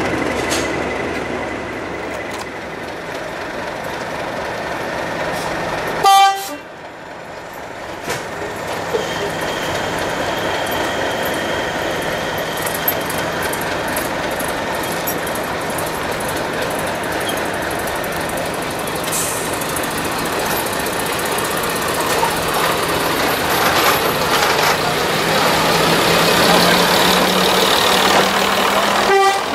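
Class 117 first-generation diesel multiple unit drawing into a platform and running past: its underfloor diesel engines hold a steady low note under wheel and rail noise, growing louder near the end as the coaches pass close by. Before a sudden break about six seconds in, another train is heard moving off.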